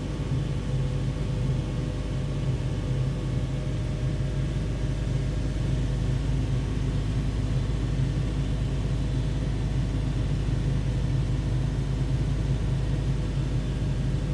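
2017 Toyota Tacoma's engine running at a steady speed, a constant low rumble with an even hum.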